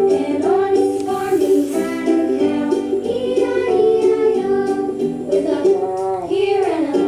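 Background music: a melodic tune with singing.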